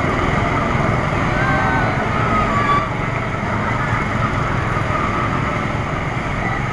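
Satellite spinning amusement ride running: a loud, steady mechanical rumble, with faint voices of riders and onlookers mixed in.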